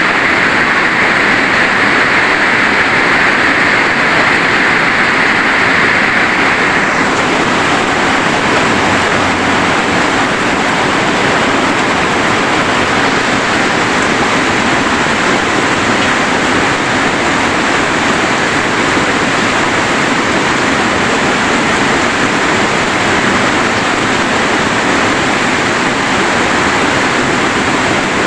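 Heavy rain falling as a steady, dense hiss; its tone dulls slightly about seven seconds in.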